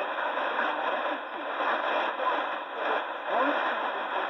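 Roberts R861 portable radio's speaker playing a weak shortwave AM broadcast: steady static hiss with faint speech half-buried in the noise. The sound is narrow and muffled, with nothing above the AM channel's treble limit.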